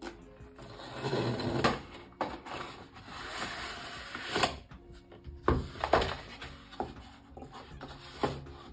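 Cardboard packaging of a GoPro Hero 12 Black sliding and rubbing as the box is drawn out of its sleeve in two long pulls, then four sharp clicks and knocks as the plastic inner case is handled and opened.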